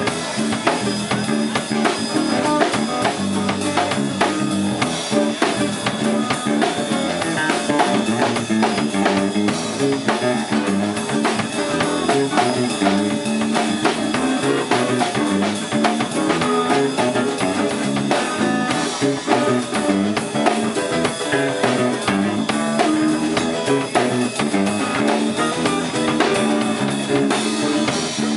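Live band playing an instrumental stretch without vocals: a drum kit keeping a busy beat with rimshots, a bass guitar and two guitars.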